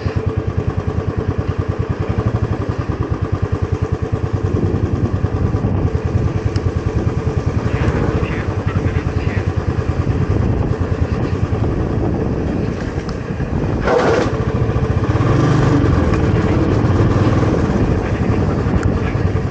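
Royal Enfield Classic 350's single-cylinder engine running steadily while the bike is ridden, its exhaust beat quick and even. There is a brief burst of noise about two-thirds of the way through.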